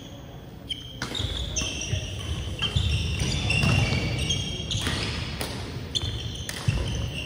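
Badminton doubles rally: a shuttlecock struck back and forth by rackets, with sharp hits every second or so, mixed with sneakers squeaking and feet thudding on the sports-hall floor.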